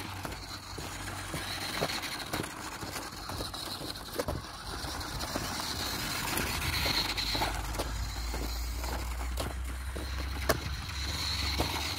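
A WPL D12 1/10-scale RC kei truck driving over loose gravel and dirt: its small electric motor and gears whine in and out, with scattered sharp clicks and crunches from the tyres on stones.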